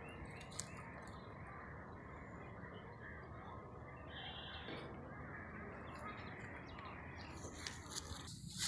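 Faint open-air ambience with a distant bird chirp and a few light clicks; a louder rustling noise starts near the end.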